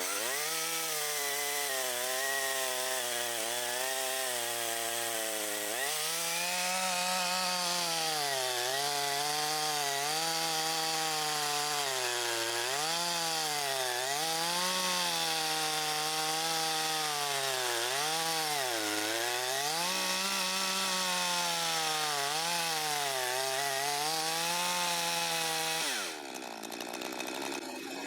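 Makita DCS5121 50 cc two-stroke chainsaw running at high revs and cutting wood. Its pitch dips and recovers again and again as the chain bites under load, then drops away near the end.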